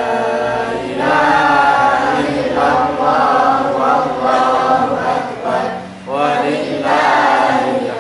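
A boy reciting the Qur'an aloud in a melodic, chanted style into a microphone. The recitation comes in long drawn-out phrases, with a short break for breath about six seconds in.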